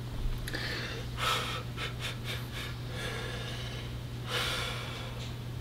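A man breathing hard through his nose and mouth, with loud noisy breaths about a second and a half in and again near the end. A few light clicks and a steady low hum run underneath.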